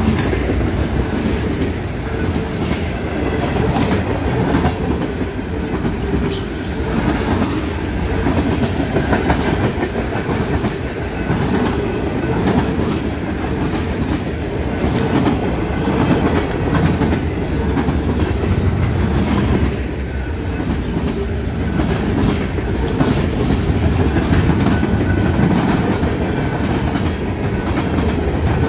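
Freight train cars rolling past at close range: a steady, loud rumble of steel wheels on the rails with clattering from the cars.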